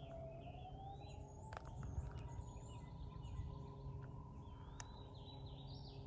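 A faint, distant emergency siren wailing slowly: its pitch dips just after the start, then rises over a couple of seconds and holds. Birds chirp now and then over a low rumble.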